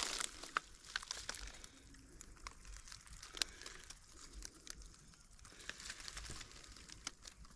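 Faint rustling and crackling of dry grass and brush underfoot and by hand, with scattered sharp snaps, as someone searches through uncut vegetation.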